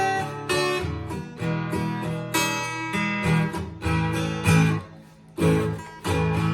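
Acoustic guitar strumming chords in the song's instrumental ending, with a short break about five seconds in before the next chord.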